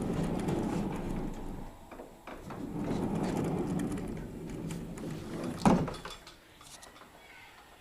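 Homemade sliding door running on its old rollers along a steel-angle track, pushed one way and then back with a rumbling roll each time, then a single knock a little before the end.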